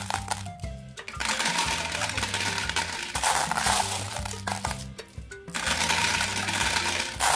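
Glass marbles clattering against each other as a hand scoops and stirs them in a plastic tub. The rattle stops briefly twice, about half a second in and around five seconds in. Background music with a stepping bass line plays throughout.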